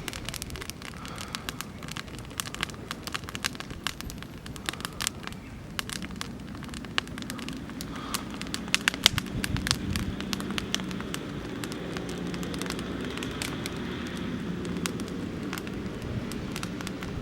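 Oak-wood campfire crackling, with many sharp irregular pops, one loudest about nine seconds in. From about six seconds in a low steady rumble builds up beneath the crackling.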